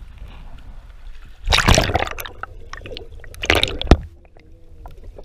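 Water splashing loudly around an action camera as it dips through the surface, twice, then the muffled sound of the camera underwater with scattered small clicks.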